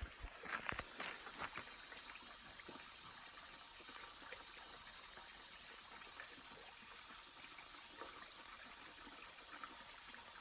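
Steady rush of running water, with a few light knocks in the first second and a half.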